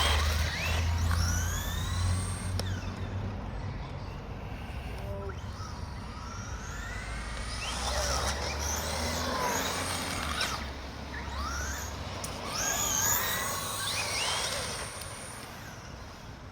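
Electric motors of 2WD RC trucks (Traxxas Rustler and Slash) whining, rising and falling in pitch again and again as the trucks accelerate and slow. A steady low hum sits under them for the first two-thirds.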